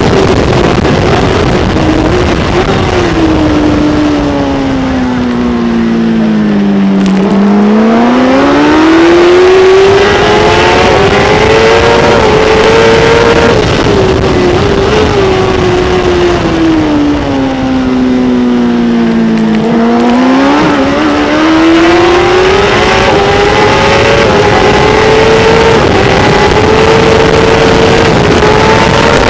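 Kawasaki ZX-10R superbike's inline-four engine running hard at high revs, with wind rushing past. Twice the engine note sinks steadily for several seconds, then climbs back up to a high whine.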